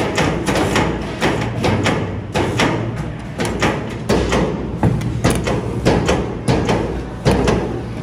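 Pedestal spot welder joining iron cage wires to a ring: the electrode arm clacks down again and again, about two to three strokes a second, over a steady low hum.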